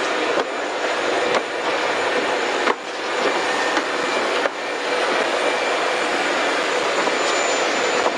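Aircraft engines running nearby, a steady loud rush with a thin high whine, briefly dipping a few times in the first half.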